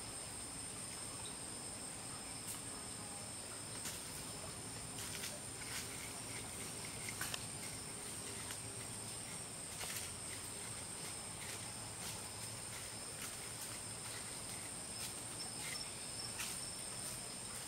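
Steady high-pitched insect chirring, two constant tones layered over each other, with scattered light clicks throughout.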